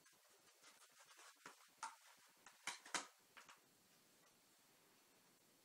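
Faint rustling and a few sharp clicks of packaging being handled as new laptop RAM modules are unpacked, the loudest clicks coming about two to three seconds in.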